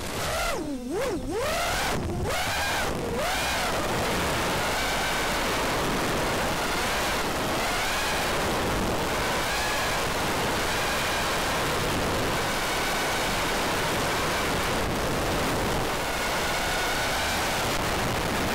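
iFlight Nazgul5 5-inch FPV quadcopter's brushless motors and propellers whining in flight under a steady heavy hiss. The whine sweeps sharply up and down in the first few seconds, then holds steadier with slight rises and falls.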